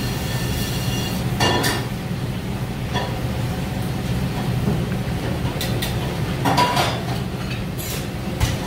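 Steady low rumble of a busy commercial kitchen, with a few scattered clinks of dishes and utensils.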